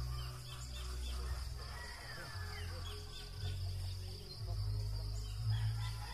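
Wind rumbling on the microphone in uneven gusts, over a steady high-pitched insect drone and scattered short bird chirps.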